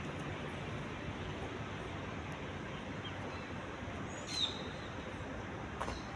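Steady hum of city traffic, with a bird's short falling chirp about four seconds in and a brief click near the end.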